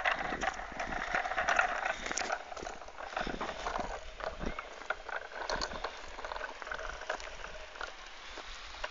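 Uneven run of light knocks and rattles on a concrete path: footsteps walking close behind and a child's bicycle with training wheels rolling over the concrete.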